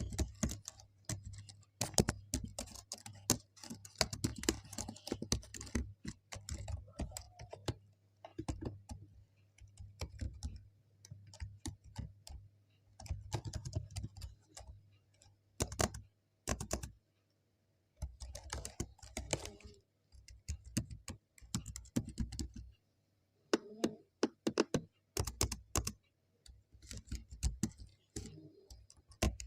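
Typing on a computer keyboard: irregular runs of key clicks coming in bursts, with brief pauses between them.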